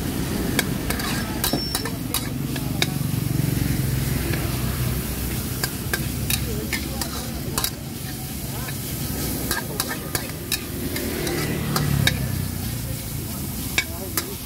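Pad kra pao being stir-fried in a wok: steady sizzling with frequent sharp clanks and scrapes of a utensil against the wok.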